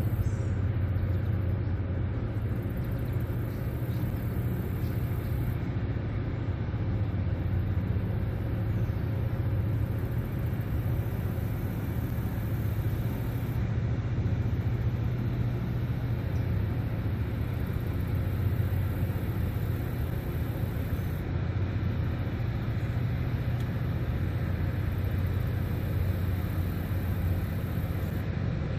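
Large river towboat's diesel engines running under load while pushing a heavy barge tow, a steady low rumble with no change in pitch.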